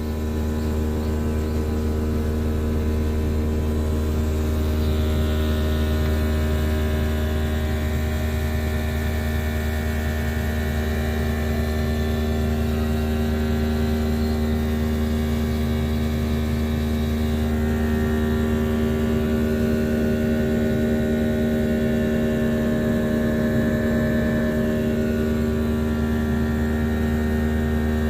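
Air conditioner outdoor unit running with a steady mechanical hum and several steady tones, the sound presented as the unit's fault noise.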